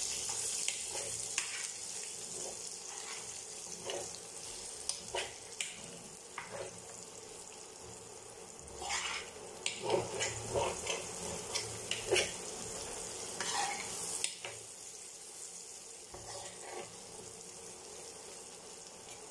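Sliced onions and ginger sizzling in hot coconut oil, sautéed toward translucent, with a steel spoon stirring and scraping against the pan in scattered clinks that are busiest about halfway through.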